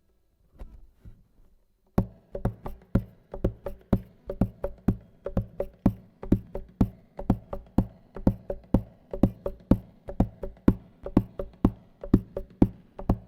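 Song intro on guitar, chords struck in a fast, steady, sharply percussive rhythm, starting about two seconds in after a few faint taps.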